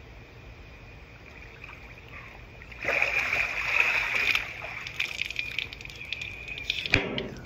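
Cold-plunge water splashing and pouring off a man as he stands up in the tub, starting suddenly about three seconds in, then dripping and splashing as he steps out, with a sharp knock near the end. A steady high insect trill, like crickets, runs underneath.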